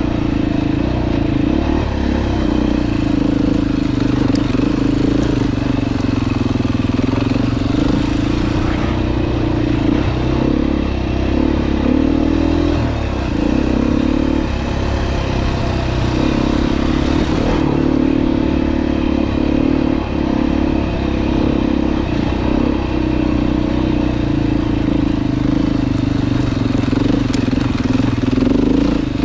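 Dirt bike engine running while riding, its pitch going up and down as the throttle is opened and closed.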